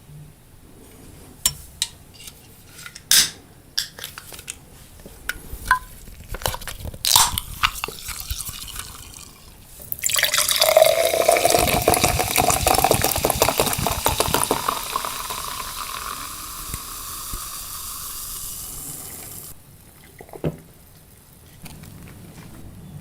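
Scattered sharp crunches and clicks for about ten seconds, then a drink poured steadily into a glass for about ten seconds, its pitch rising as the glass fills. A single click comes near the end.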